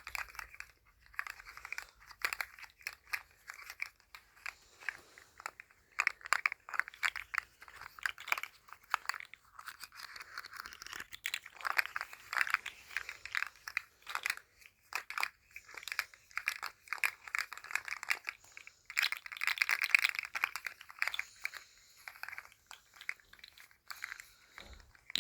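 Articulated plastic rainbow slug fidget toy rattling as it is moved in the hand: dense runs of fast, light clicks from its segments, coming in waves with louder stretches.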